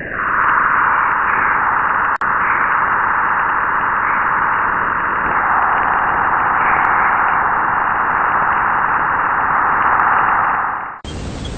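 Steady, loud hissing noise in a narrow mid-pitched band, played as a 'strange sound of the universe' recording. It cuts off suddenly near the end, and a different, fuller rushing noise follows.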